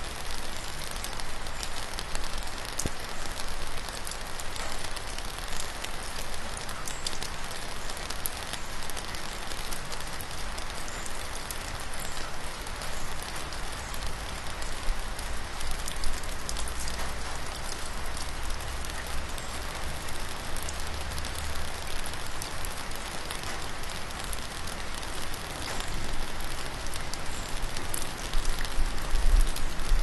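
Steady rain falling: an even hiss with the patter of separate drops. A low rumble swells for a few seconds in the middle and again near the end.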